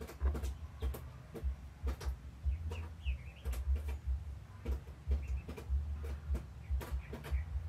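Hen making a few short, soft high calls while sitting on her eggs in the nest, about three seconds in and again near the end, over scattered clicks and a pulsing low rumble.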